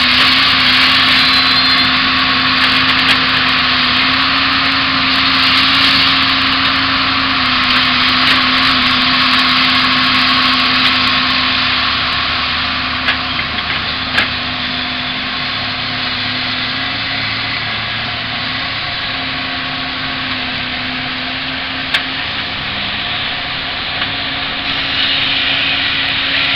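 Tigercat H855C tracked harvester working radiata pine logs: its diesel engine runs steadily under a loud rushing machine noise as the processing head handles the logs, with a few sharp knocks through the middle. The sound eases slightly about halfway through.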